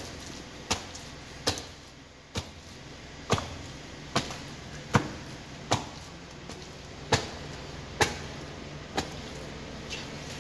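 Flat-soled leather boots trampling raw chicken pieces on a concrete floor: about a dozen sharp steps, roughly one a second.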